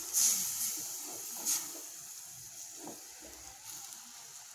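Hot banana-flower kuzhambu (tamarind gravy) hissing after water has been poured in, the hiss fading over the seconds, while a ladle stirs through the gravy with two brief louder splashes, one at the start and one about a second and a half in.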